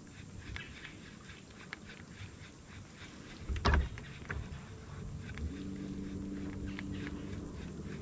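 A single dull thump about halfway through, then an electric trolling motor starts up and hums steadily at a low, even pitch, over faint scattered clicks.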